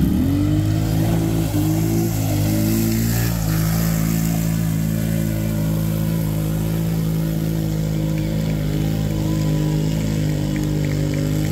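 ATV engine revving up sharply as it launches, then held at high revs at an almost unchanging pitch while its wheels churn through a mud bog pit.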